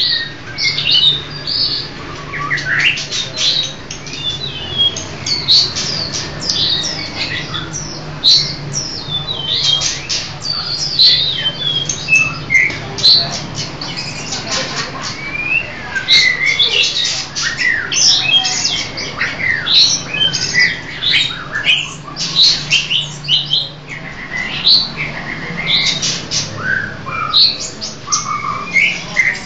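Caged songbirds singing and chirping without pause: a busy run of quick whistles, trills and short chirps, several birds at once, over a faint low hum.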